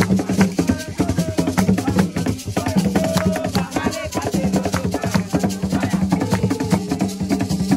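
Live hand drumming on wooden hand drums: a fast, dense beat of many strokes, with held pitched notes sounding over it.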